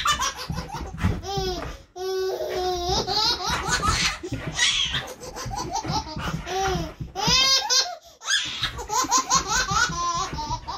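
A baby laughing hard in repeated fits, breaking briefly for breath about two seconds in and again about eight seconds in.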